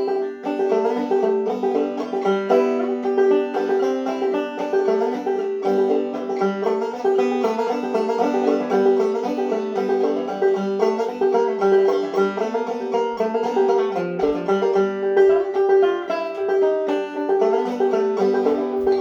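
Five-string banjo played clawhammer style in open G tuning, a brisk run of struck and plucked notes over a steady ringing high drone note.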